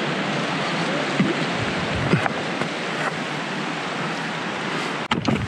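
A steady, unbroken rushing noise that cuts off suddenly about five seconds in.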